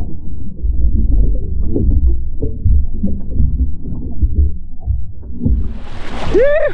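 Muffled churning and sloshing of surging sea water heard by a submerged action camera, with dull knocks and little high sound. Near the end the water noise brightens into a hiss as the camera nears the surface, and a man gives a short whoop.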